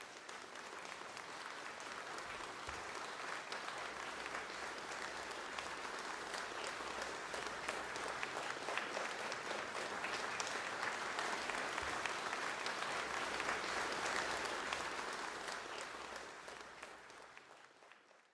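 Applause, many hands clapping, fading in at the start and fading out near the end.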